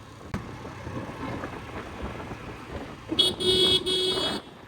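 Road traffic noise, then a vehicle horn sounds about three seconds in: a short toot followed at once by a steady blast of about a second.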